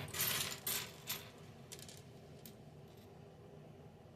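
Loose plastic Lego pieces rattling and clicking against each other as they are sifted by hand, busiest in the first second or so, then a few single clicks.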